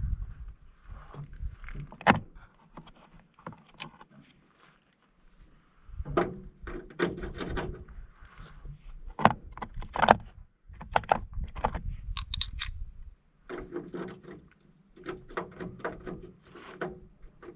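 Irregular metallic clinks, rattles and knocks of metal parts being handled while an air-conditioning unit is taken apart for scrap, with a brief high ringing clink about twelve seconds in.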